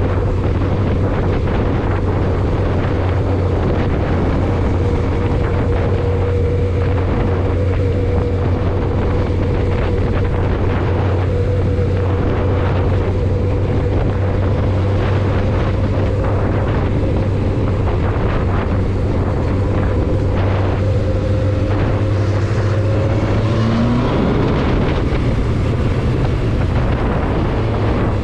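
Car driving, heard from inside the cabin: a steady drone of engine and road noise with a constant hum. About 24 s in, the engine note dips and shifts in pitch, then settles again.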